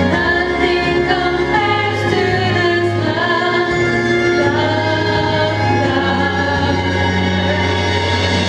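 Two women singing a worship song together into microphones through a PA, long held notes over instrumental backing with a steady bass line.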